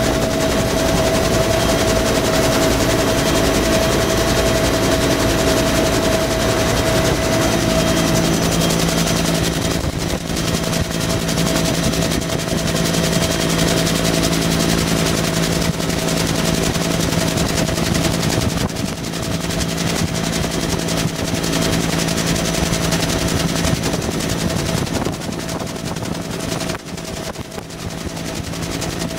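Bell UH-1B Huey helicopter in flight, heard from inside the cabin: the steady whine of its turbine engine under the fast chop of the two-bladed main rotor. About eight seconds in, a high whining tone drops away and a lower drone takes over.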